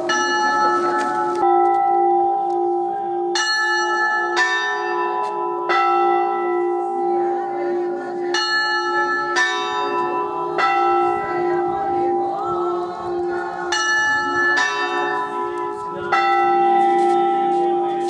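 Orthodox church bells ringing a festal peal: different bells struck about every second or so, each note ringing on, over a steady lower tone that keeps sounding.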